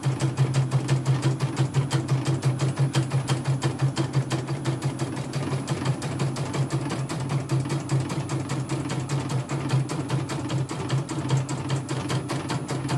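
CNY computerised embroidery machine stitching a design: its motor and needle bar run with rapid, even needle strokes while the hoop steps the fabric under the needle.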